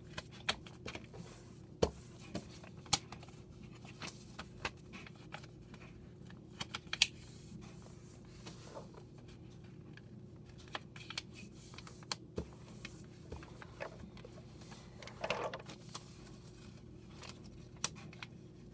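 A sheet of paper being folded and creased by hand on a tabletop, with scattered rustles, crinkles and sharp taps as the corners are pressed into the middle, over a faint steady hum.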